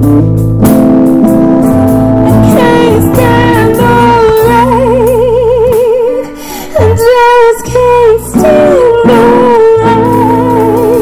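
Live band playing: a woman begins singing about two and a half seconds in, holding notes with a wide vibrato, over acoustic guitar, electric bass, keyboard and drums.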